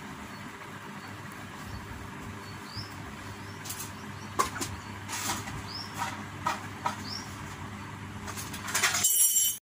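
Steady low background hum with a few sharp clicks in the middle and several short, high rising chirps, like a small bird's; a brief louder burst of noise near the end cuts off suddenly.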